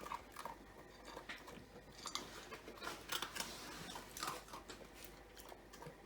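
Dalmatian puppy eating her breakfast: quick, irregular chewing and crunching of food, fairly faint.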